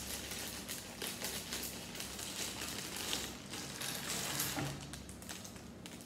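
Plastic Lego parts bags crinkling and rustling as they are handled and opened, a busy run of crackles and small clicks.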